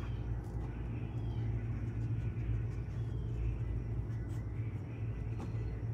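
Steady low rumble, like a running engine or distant traffic, with a few faint high chirps over it.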